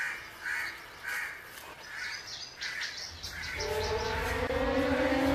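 A crow cawing over and over, about two caws a second, dying away as dark suspense music with a low rumble and slowly rising held tones swells in about three seconds in.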